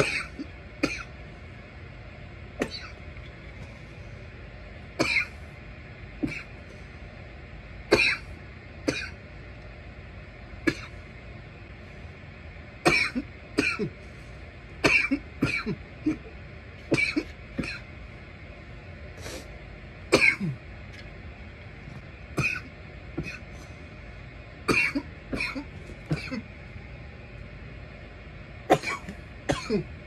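A person coughing repeatedly after inhaling bong smoke: short hacking coughs every second or two, often several in a row, with some throat clearing, over a steady background hiss.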